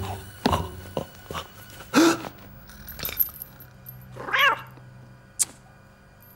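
Cartoon cat meowing: a short wavering call about four seconds in, after a louder short call near two seconds, with a few sharp clicks between.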